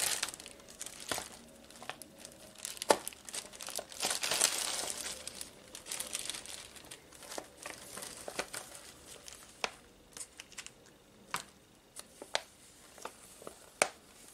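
Clear plastic bag crinkling and rustling as it is handled, together with a paper manual being drawn out of it. The rustles come irregularly, with a few sharp crackles, and are loudest about four to five seconds in.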